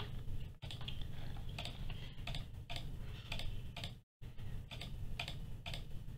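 Computer keyboard and mouse clicking and tapping, irregular, about three clicks a second, over a low steady hum.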